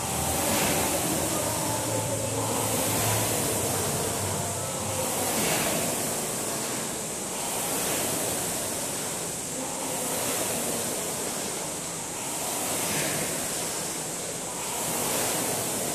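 Air-resistance rowing machine's fan flywheel whooshing under hard rowing, swelling with each stroke about once every two seconds.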